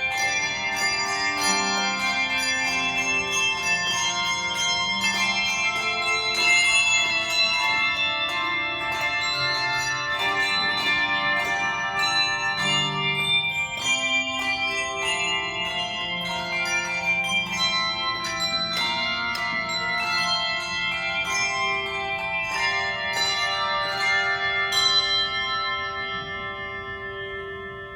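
Handbell choir playing a piece: many struck bell notes with long ringing overtones overlapping into chords. Near the end the strikes stop and the last chord rings on, dying away.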